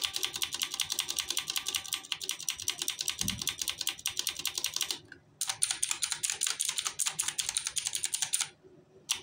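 Sprange MK-11 mechanical keyboard with clicky blue switches being typed on fast: a dense run of sharp keystroke clicks that breaks off briefly about five seconds in, then resumes and stops near the end.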